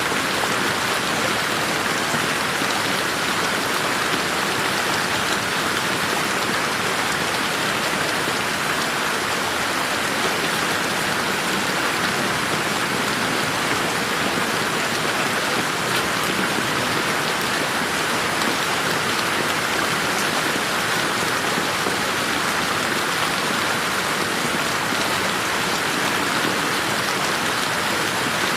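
Steady rain falling on a garden: an even, unbroken hiss of many drops. The recording is mixed with a slowly moving 8D panning effect.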